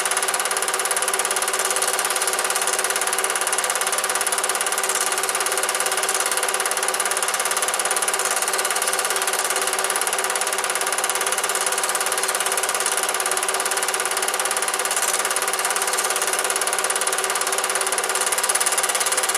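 Cine film projector running steadily: a constant mechanical whirr of the motor and film mechanism with a steady hum.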